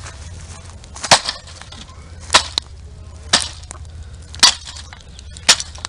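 Burnt TV screen being struck and broken in a bonfire: five sharp cracks about a second apart, with a low steady rumble underneath.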